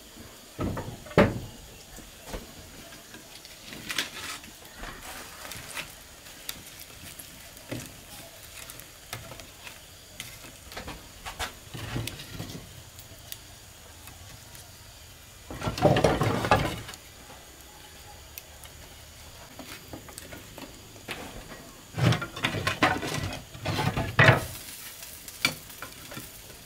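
Split firewood sticks knocking and clattering against brick and each other as they are fed into a brick wood stove's firebox, in several clusters, the loudest about sixteen seconds in and again twice over a couple of seconds near the end. Between the clattering, the wood fire crackles faintly.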